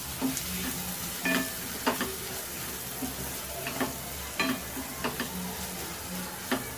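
Onion-tomato masala sizzling in a metal pan as a wooden spatula stirs it, scraping and knocking against the pan about once a second, some knocks with a short metallic ring.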